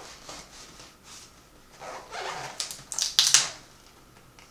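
Knife slitting the packing tape on a cardboard box: a run of sharp ripping, scratching strokes starting about two seconds in, loudest near the end of the run, with light handling of the box before it.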